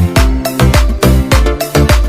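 Background music with a steady, bass-heavy dance beat in an Afrobeat style.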